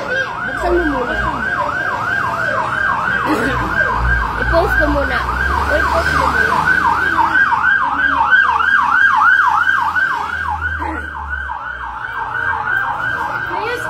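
Fire truck siren on a fast yelp, a loud tone sweeping up and down about three times a second, over the truck's low engine rumble, which fades out about eleven seconds in.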